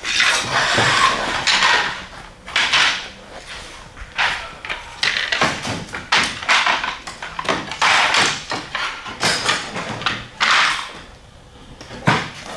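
Roofing slates and slate tools being worked and handled: an irregular run of short scraping and knocking sounds, roughly one a second, with a lull near the end.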